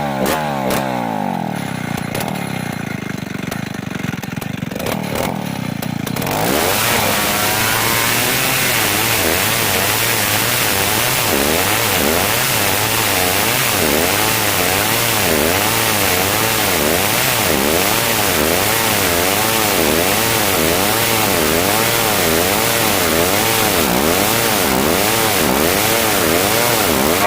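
Old chainsaw settling to a lower idle, then opened up to full throttle about six seconds in and cutting into a dry merbau hardwood log. Under load its engine pitch rises and falls about once a second.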